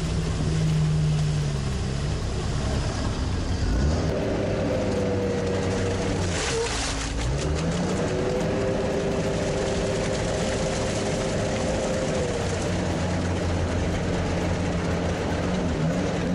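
Diesel engine of an all-terrain swamp vehicle running under way, its note dipping and picking up again about halfway through.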